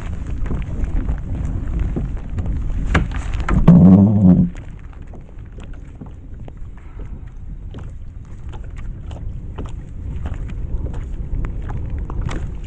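Wind buffeting the microphone for the first few seconds, with a short loud hum about four seconds in. After that it turns quieter, with many small irregular clicks and taps.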